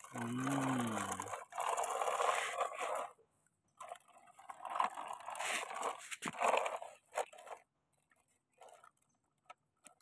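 Plastic toy dump truck and toy excavator scraping and rattling as they are moved by hand, in a long scrape and then several shorter bursts, with a few light clicks near the end.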